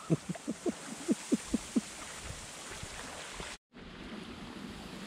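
A quick run of about nine short quacking notes, each dropping in pitch, over the first two seconds. After a brief dropout comes a steady hiss of wind in the reeds.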